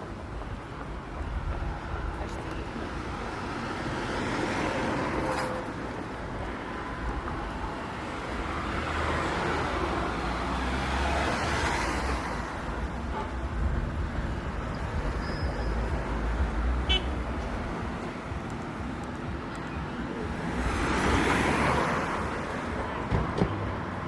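Street traffic: cars passing on a town road, three passes rising and fading over a steady low rumble.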